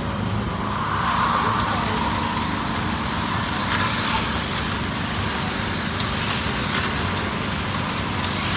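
Steady outdoor background noise over a low, even engine hum.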